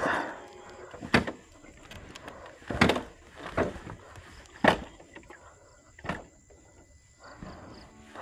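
Irregular sharp knocks and clanks, about half a dozen spread over several seconds, as hands work on a motorcycle's broken side stand.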